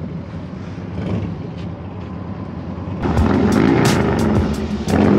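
Motorcycle engine running at a low, steady idle; about three seconds in the sound turns suddenly louder and busier, with many sharp crackles over the engine.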